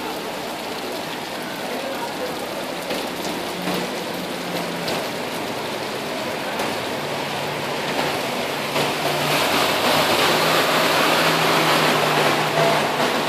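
Steady hiss of heavy rain and running water, growing louder about eight seconds in.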